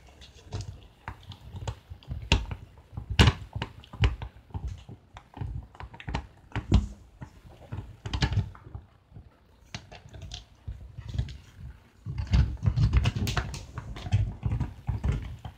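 German shepherd gnawing on a hard chew, teeth and chew knocking and clicking together in an irregular run of sharp clicks, denser with low thumps near the end.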